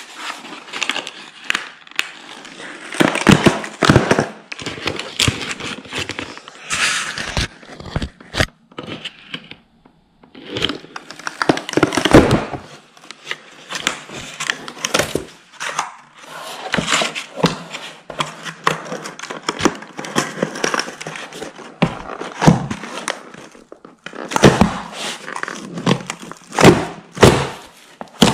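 Hollow IKEA Kallax divider panel being pulled apart by hand: its thin facing sheet tearing away from the honeycomb cardboard core in irregular cracks and rips, with knocks as the panel is handled.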